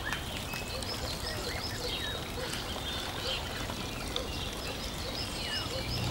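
Birds chirping in quick repeated calls over a steady rush of running water.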